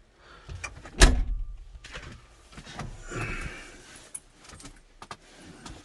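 Cab door of a Doosan 55W wheeled excavator being handled: one loud thud about a second in, followed by scattered clicks, knocks and rustling.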